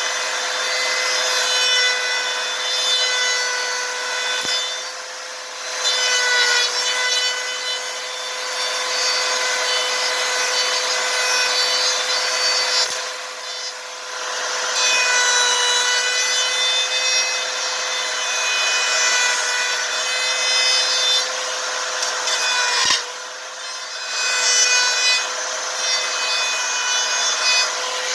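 Electric saw blade cutting out a speaker opening, its motor running with a steady high whine over the rasp of the blade through the material, easing off briefly three times.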